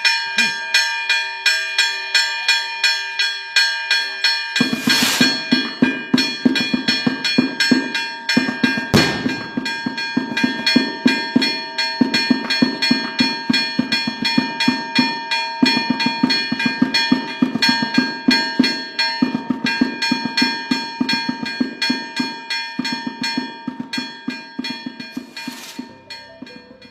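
Church bells pealing rapidly, about three to four strokes a second, their tones ringing on between strokes. A deeper bell joins about four and a half seconds in, and the pealing fades near the end.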